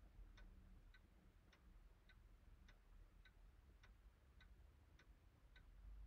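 A clock ticking faintly and steadily, a little under two ticks a second, over near silence.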